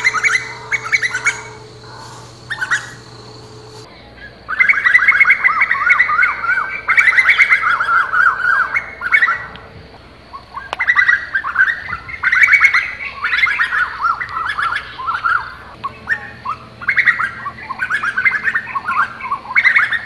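Birds calling in loud bursts of rapid chirping notes, several seconds of dense chatter at a time with short pauses between.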